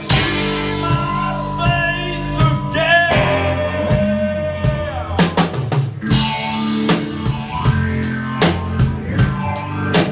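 Live band playing: electric guitar, bass guitar and drum kit. Sustained guitar notes run over steady drum hits, and the drums come through more sharply in the second half.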